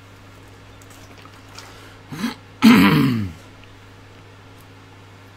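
A man clearing his throat once, a short harsh rasp that falls in pitch, about two and a half seconds in, with a brief softer vocal sound just before it.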